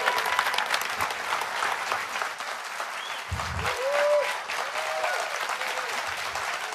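A large audience applauding steadily, with a brief low thud about halfway through.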